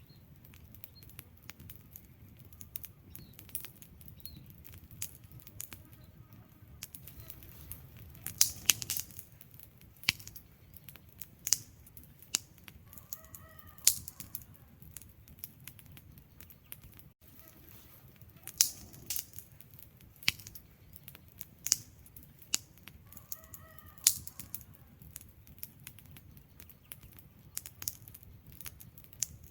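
Wood fire crackling: irregular sharp pops and snaps from the burning logs over a low, steady rush of the flames, with a few louder pops clustered around the middle.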